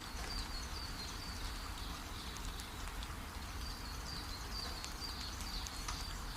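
Steady rain, with a bird calling in a repeated series of short high notes over it.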